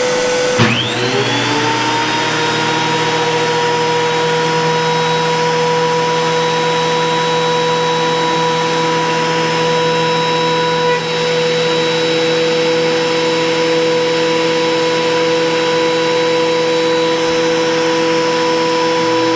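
DeWalt DW734 thickness planer's motor and cutterhead spinning up with a rising whine in the first second, then running at a steady, loud whine. A twisted board is fed through on a very shallow pass that takes almost nothing off.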